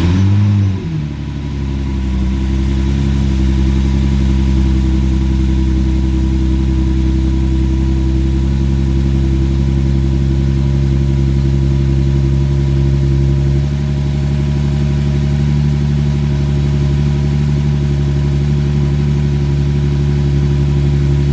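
Infiniti G37's 3.7-litre V6 (VQ37VHR) catching and flaring in revs for a moment, then settling into a steady idle. The idle note drops a little about two-thirds of the way through. This is the first start after fitting throttle body spacers and cone-filter intakes, checking that it runs.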